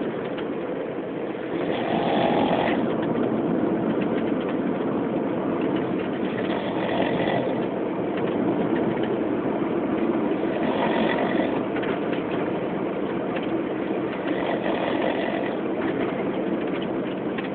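A drunk man snoring, one snore swelling up about every four seconds over a steady background noise.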